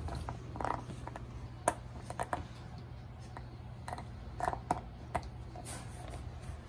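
A puppy playing with a rubber spiky ball in a wire playpen: scattered knocks, rattles and scuffs of the toy, paws and the wire bars, with a few brief louder bits about a second in and again near the middle.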